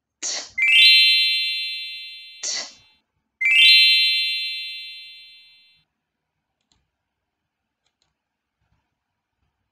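Two electronic chime sound effects, each a quick rising run of bright bell-like tones that rings and fades away over about two seconds; the first comes about half a second in, the second about three and a half seconds in.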